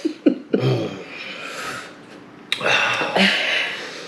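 A person breathing hard through the mouth against the burn of a Carolina Reaper chili chip: a short vocal sound at the start, then two long noisy breaths, the second starting suddenly about two and a half seconds in.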